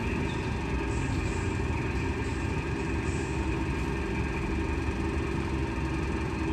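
Steady low rumble and hum of fans running.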